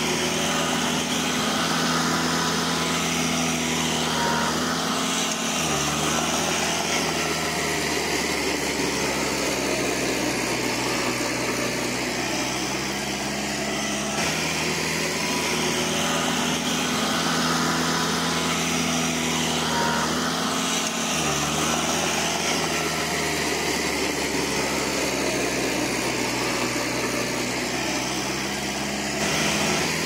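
Diesel engine of heavy construction machinery running steadily, its note dipping briefly about five seconds in and again about twenty-one seconds in.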